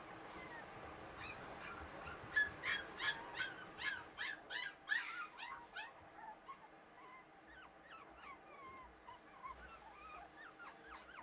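Pomeranian puppies yipping, a quick run of short high cries about two or three a second, then fainter falling whimpers for the second half.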